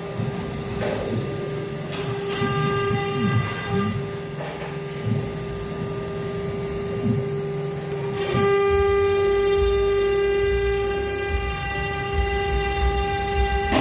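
2.2 kW CNC router spindle running at a steady high whine while its 3 mm bit engraves aluminium composite panel. The axis motors add lower tones that rise and fall as the gantry moves, and the sound gets louder, with more low rumble, about eight seconds in.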